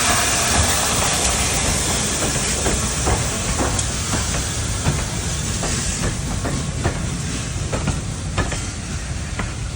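Steam-hauled train moving on the rails: a strong hiss of steam fades away while sharp clicks of the wheels over the track come through more clearly in the second half.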